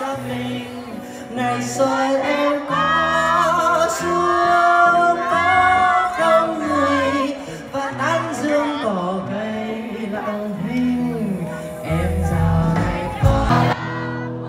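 Live concert music: a singer backed by a band with keyboard and guitar, played over a large outdoor sound system, with heavier bass near the end.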